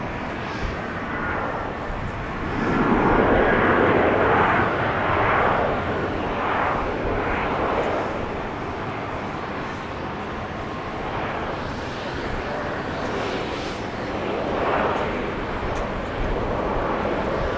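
Jet airliner engines, a twin-engine Airbus A320, giving a steady roar. The roar swells about three seconds in, then eases off to a lower steady level.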